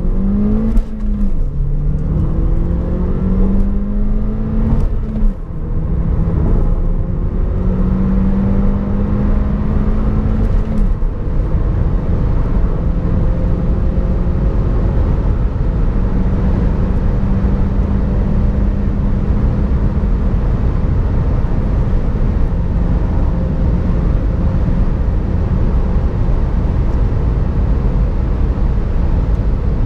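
Opel Insignia Grand Sport's 1.6 turbocharged four-cylinder petrol engine, heard from inside the cabin, pulling hard at full throttle. Its note climbs and drops sharply at three upshifts in the first eleven seconds. It then pulls long and slowly rising in a high gear under steadily louder wind and tyre noise as the car passes 200 km/h.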